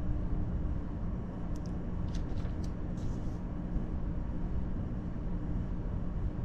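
A steady low rumble with a faint hum under it, and a few short high-pitched chirps about two to three seconds in.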